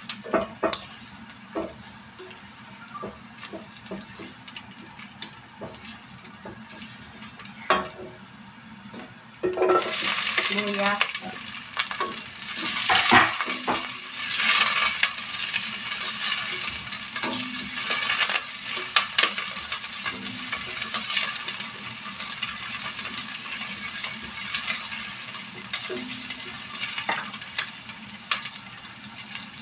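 Garlic and ginger frying in oil in a pot, stirred with a silicone spatula that scrapes and taps against the pan. About ten seconds in the sizzling suddenly turns loud and stays steady under the stirring.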